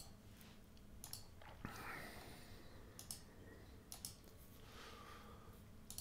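Near silence with a few faint, irregularly spaced computer mouse clicks.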